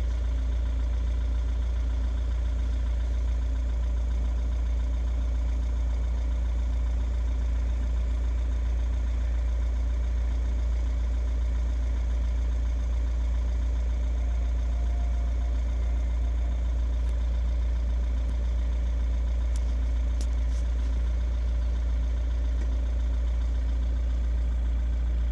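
Steady low engine hum of an idling vehicle, even in loudness, with a few faint steady tones above it.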